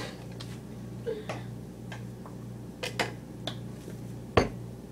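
A few scattered light clicks and taps over a steady low hum, with one sharp, louder knock about four and a half seconds in.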